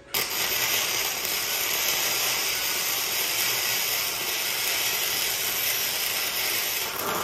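Electric arc welding a bead: a steady, loud hiss of the arc that starts abruptly and cuts off after about seven seconds. The welder is set way too hot for the metal, and this bead blows a hole through it.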